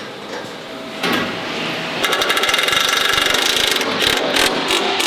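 A power tool rattling rapidly for about two seconds, starting about two seconds in, with metallic knocks and clanks around it.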